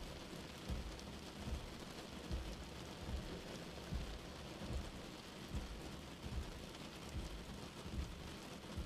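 Steady rain on a car windscreen with the wipers running slowly, giving a soft low thump a little more often than once a second.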